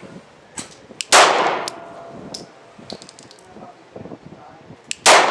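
Two shots from a 9mm Glock 19 pistol, about four seconds apart, each with a short ringing tail, with lighter sharp ticks in between.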